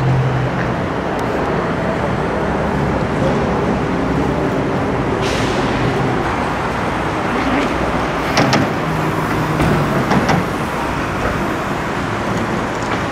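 Steady road traffic noise, with a low engine hum near the start and a few sharp knocks in the second half.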